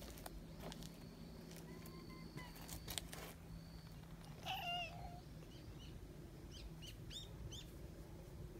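A cat meows once, a short call about halfway through. A few light clicks come before it, and short high chirps near the end.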